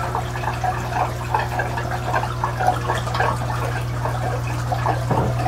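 Water pouring and gurgling as submersible pumps drain several aquarium tanks during a water change, over a steady low hum from the running pumps and air pump.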